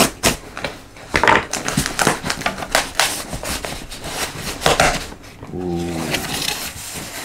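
Packing tape being peeled off a cardboard box and the cardboard flaps pulled open: a string of short crackling rips, with two longer tearing rasps about a second in and near the five-second mark.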